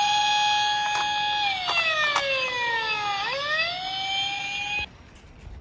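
Police siren wailing: a steady high tone that slowly falls in pitch, sweeps quickly back up, then cuts off suddenly near the end.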